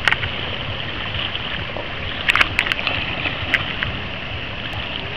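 Shallow seawater lapping and splashing around a person sitting in it, with a few short sharp splashes a little over two seconds in, over a low steady rumble.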